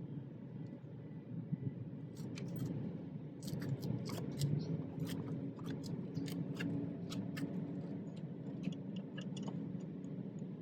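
Scattered sharp clicks and taps of tools and parts being handled while reassembling a car door, over a steady low hum.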